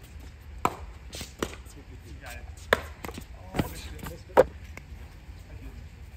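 A pickleball rally: paddles striking a plastic pickleball with about six sharp, irregularly spaced pocks, the loudest about four seconds in.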